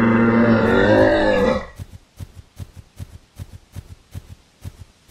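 A long animal call with a steady pitch, lasting about three seconds, cuts off just under two seconds in. After it come footstep sound effects, about three a second, as an animated camel walks in.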